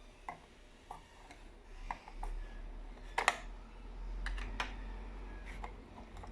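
Irregular light clicks and taps of a small alarm clock's plastic and metal parts being handled, with two sharper clicks close together about three seconds in.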